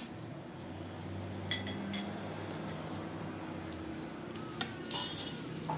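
A few light clinks of dishes or utensils knocking together, each with a brief ring: two near the start and two more near the end.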